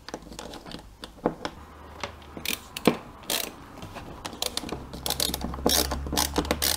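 Small electric screwdriver driving the screws of a plastic screw-terminal block: a low motor hum starts about a second and a half in, with irregular sharp clicks and ratcheting throughout.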